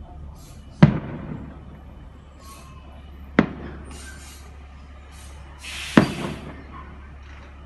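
Fireworks display: three sharp bangs of aerial shells bursting, about two and a half seconds apart, each trailing off in echo, with fainter hissing in between.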